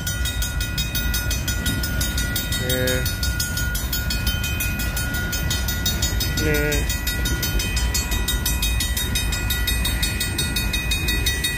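Freight train of covered hoppers and tank cars rolling steadily past at a grade crossing, a continuous low rumble. Over it, the crossing signal's warning bell rings steadily.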